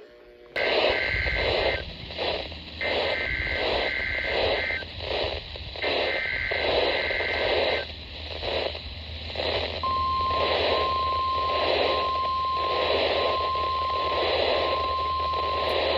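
NOAA Weather Radio receiver picking up a weather-radio test through heavy static that swells and fades. The digital SAME header sounds three times as short warbling data bursts, then the steady 1050 Hz warning alarm tone starts about ten seconds in and holds.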